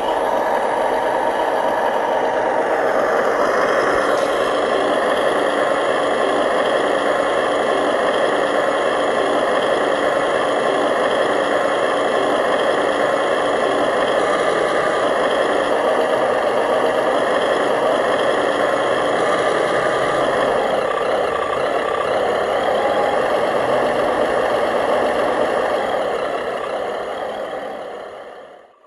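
Remote-control model truck running steadily, a dense mechanical drone with several fixed tones that fades out near the end.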